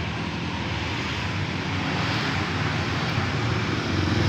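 Road traffic: a vehicle engine running steadily, getting louder near the end as a motorcycle comes closer.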